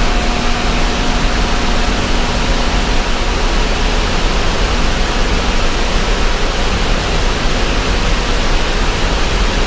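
Steady, loud rush of water pouring out of a dam release, an even noise without breaks.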